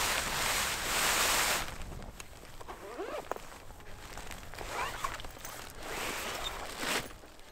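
Gusts of strong wind, loudest in the first second and a half and again near the end.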